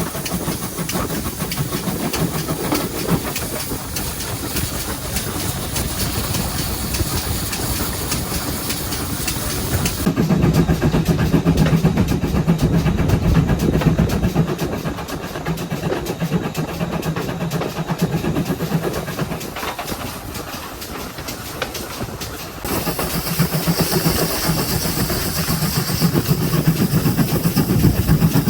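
GWR 57xx-class 0-6-0 pannier tank steam locomotive running along the line: a steady rumble with steam hiss and wheels clattering over the rails. The sound changes abruptly about ten seconds in and again near the end, growing louder in the low range each time.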